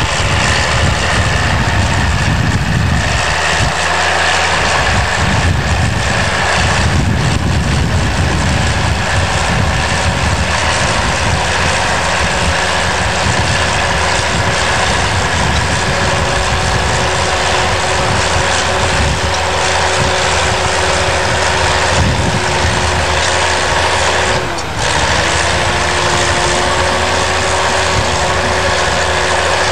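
Crawler bulldozer's diesel engine running steadily, with a steady whine over the engine. There is a brief drop in level about 25 seconds in, after which the whine sits slightly higher.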